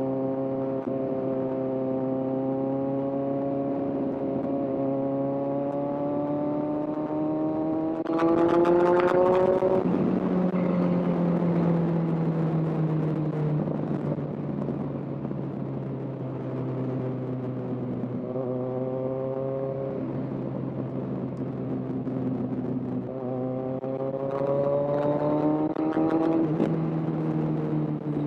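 Kawasaki Z1000's inline-four engine under way on a motorcycle ride, its pitch climbing steadily as the bike accelerates, then dropping sharply about ten seconds in and again near the end as the rider shifts or rolls off the throttle.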